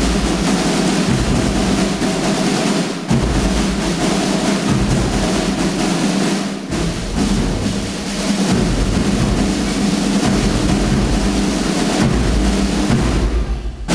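A marching drum corps playing: several snare drums beating and rolling together over a steady bass drum beat, with a couple of brief breaks in the pattern.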